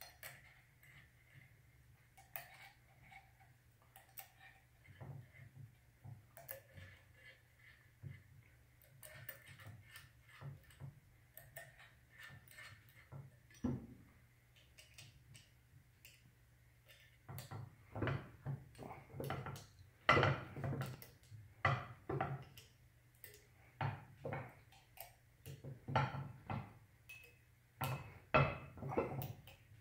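Light metallic clicks and clinks of a hex key turning screws in a metal fixture plate, sparse at first and coming faster and louder in the second half, over a faint steady hum.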